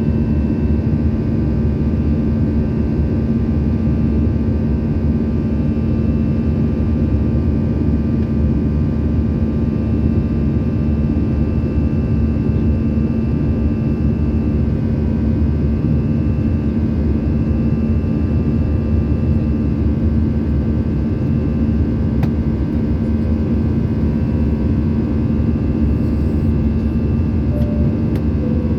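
Steady cabin noise of an Airbus A320-family jet airliner: an even drone of engines and airflow with several steady whining tones held over it.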